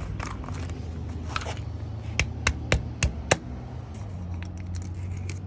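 Plastic motor-oil jug being opened by hand: a quick run of five sharp clicks about two seconds in as the screw cap and foil seal come off. A steady low hum lies underneath.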